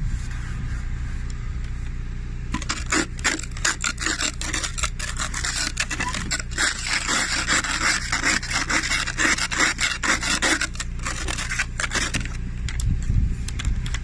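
Snow brush and scraper scraping snow and ice off a car in quick, repeated strokes. The strokes start about two and a half seconds in and stop about two seconds before the end, over a steady low hum.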